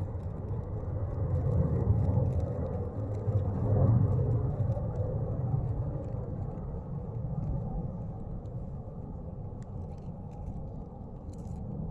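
Steady low rumbling noise, swelling about two and four seconds in and easing toward the end.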